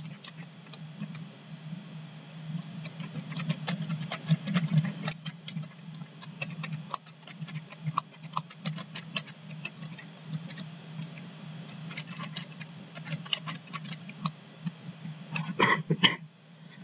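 Typing on a computer keyboard: irregular, quick key clicks as a name is typed in, over a steady low hum.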